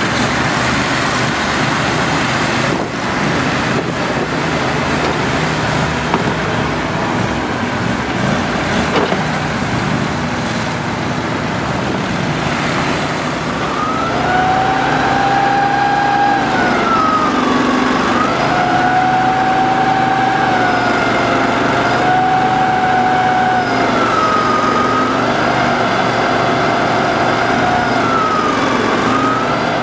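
Argo 8x8 amphibious ATV engines running as they drive through a river, with water splashing. From about halfway a high engine whine comes in, dipping in pitch and rising again a few times as the throttle changes.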